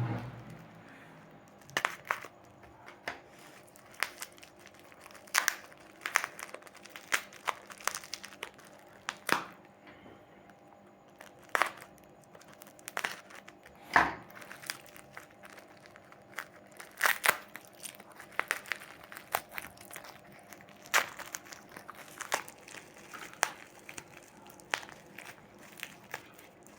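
Gift wrapping being torn open and crumpled by hand: irregular crinkling and tearing crackles with short pauses between them.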